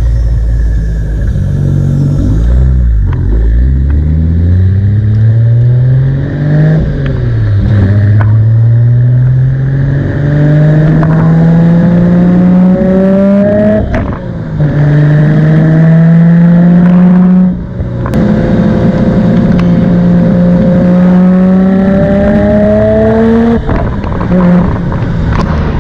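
Nissan Skyline R32 GT-R's RB26 twin-turbo straight-six engine pulling hard under acceleration, its pitch climbing through each gear and dropping sharply at several gear changes.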